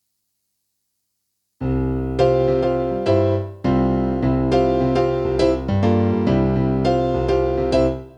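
Yamaha NP-11 portable digital keyboard playing a piano-type voice, a melody over chords with changing bass notes, starting about a second and a half in.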